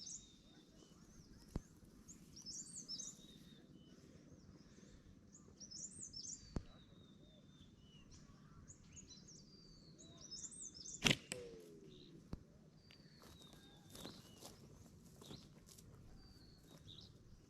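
Forest birds singing, short high chirping phrases repeating every two to three seconds. A few sharp clicks come in between, the loudest about eleven seconds in.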